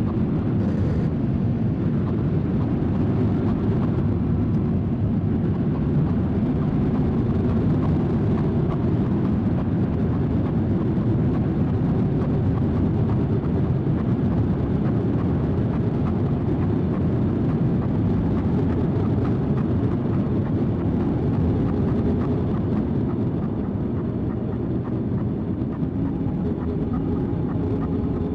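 Harsh noise drone: ambient electronic tracks corrupted through a chain of effects pedals (KMA Cirrus, Subdecay Vitruvian Mod, Mastro Valvola LEM, OBNE Dark Star, EHX Stereo Memory Man) and looped on a Boss RC-505. A dense, steady wash of distorted noise, heaviest in the low and lower-middle range, holding one level without a break.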